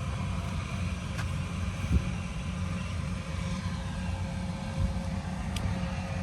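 An engine running steadily, a low drone with a faint steady hum above it, broken by a couple of brief knocks.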